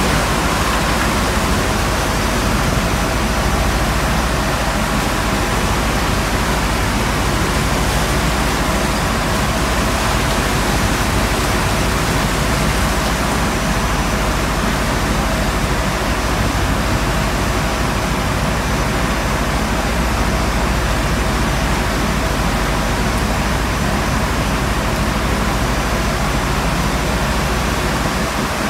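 Seawater rushing and sloshing across a tanker's deck as waves break over it, a loud unbroken wash, with a steady hum underneath.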